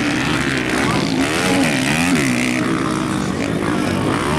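Dirt bike engines revving on a motocross track, their pitch climbing and dropping as riders accelerate out of corners, with more than one bike running at once.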